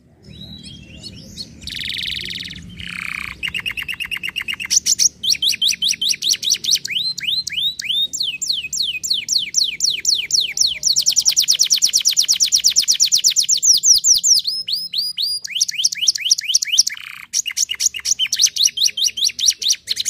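Domestic canary singing a long song made of rapid trilled phrases, each a fast run of repeated falling notes. It opens with a harsh buzzy note, and the fastest, densest trill comes in the middle. The song breaks off briefly near the end and then goes on.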